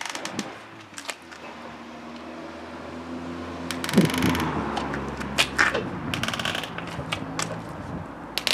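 Nylon cable ties being pulled tight around a foam pool noodle: two quick ratcheting zips, about half a second each, the first near the middle and the second about two seconds later, with scattered clicks of handling. A low steady hum sounds underneath.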